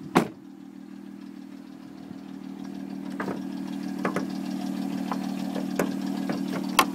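A 2005 Hyundai Tucson's 2.7-litre V6 idling steadily. Over it, a loud car-door slam just after the start, a few lighter clicks and knocks, and a sharp click near the end as the hood latch is worked.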